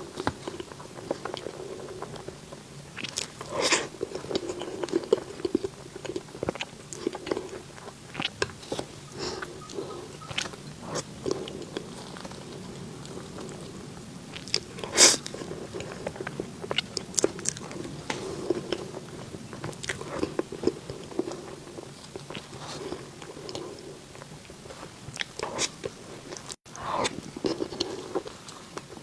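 Close-miked eating: a person biting and chewing cake and desserts, with wet mouth clicks and smacks and a louder sharp click about halfway through.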